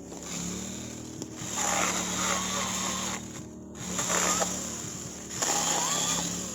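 Chainsaw cutting into wood in three bursts of a second or two each, over a steady engine hum.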